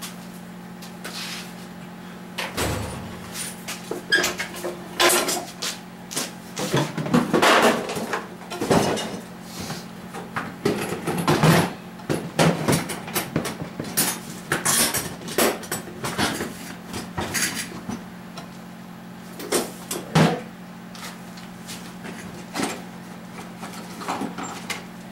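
Metal hand tools clinking and clattering as they are picked up, set down and moved about, in irregular knocks that come thickest in the middle, over a steady low hum.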